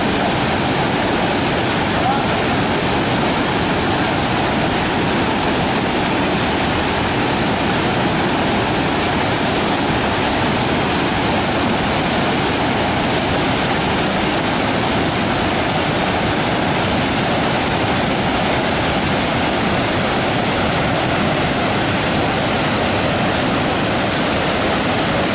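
Waterfall on the Mogi Guaçu river, water rushing over the falls in a loud, constant roar with no change.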